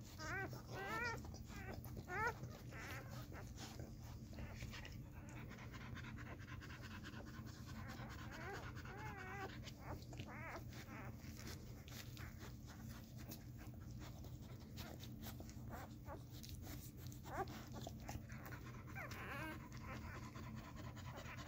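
Newborn Miniature American Shepherd puppies squeaking in short, high whimpers that rise and fall in pitch: several in the first couple of seconds, more around the middle and near the end. The mother dog pants beneath them.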